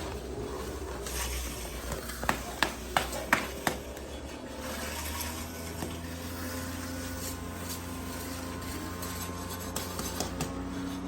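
Steady low engine hum, with a quick run of five or six sharp knocks about two to four seconds in.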